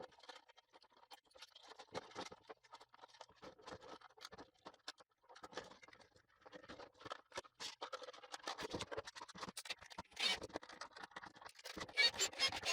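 Irregular small clicks, taps and scraping of parts being handled and fitted together by hand, as the Ryobi compressor is put back together.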